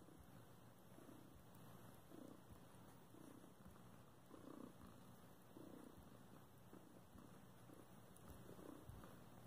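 Domestic cat purring faintly, swelling and easing about once a second.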